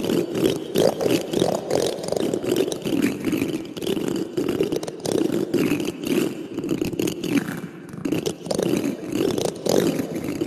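Metal teaspoon scraping and raking over cactus thorns, a dense run of rapid scratchy clicks and rasps that eases briefly near the end.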